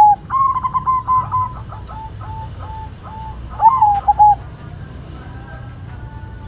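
White zebra dove (perkutut) singing: a run of short, clear cooing notes that spread apart and fade over about three seconds, then a second loud phrase a little after three and a half seconds in. Fainter bird calls follow near the end.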